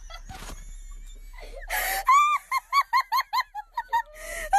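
A short, sharp breathy sound, then a quick run of about nine high-pitched, wheezy laughs.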